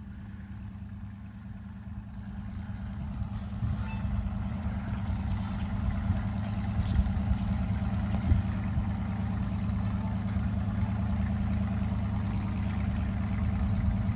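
Farm machinery engine running steadily with a low hum, growing louder about two seconds in, with a couple of brief knocks midway.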